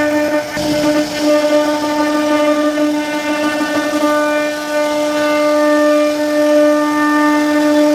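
CNC router spindle running at a steady high-pitched whine while its bit carves a relief pattern into a wooden panel, with a rougher cutting noise underneath.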